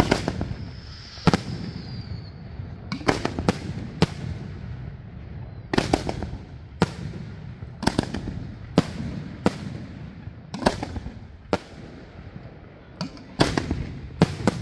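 Aerial firework shells bursting overhead in a steady barrage, a sharp bang about once a second, some in quick doubles and clusters, each with an echoing tail over a continuous low rumble.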